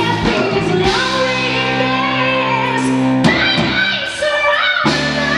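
Live blues-rock band: a woman sings over electric guitar, keyboard and drums. Partway through, a chord is held steady for about two seconds.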